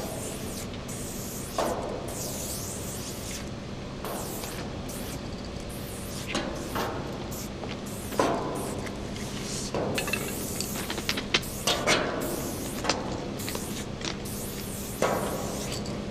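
Aerosol spray-paint can hissing in repeated short and longer bursts as a graffiti tag is painted, with a few sharp knocks between bursts and a steady low hum underneath.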